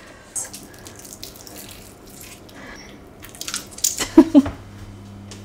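Soft, wet squishing and crackling of slow-roasted garlic cloves being squeezed out of their papery skins by hand, with a cluster of louder squelches about four seconds in.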